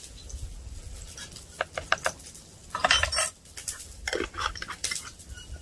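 A teaspoon and cooking utensils clinking and tapping against a Dutch oven and jars in scattered light knocks, with a short burst of clatter about three seconds in.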